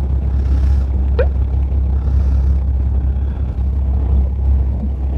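Fishing boat's engine running with a steady low rumble, with a short rising squeak about a second in.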